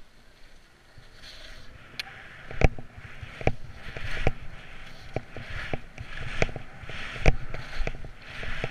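Skis scraping over packed snow on a mogul run, the hiss swelling and fading with each turn, with sharp knocks as the skis and poles strike the bumps; the two loudest knocks come about two and a half and seven seconds in.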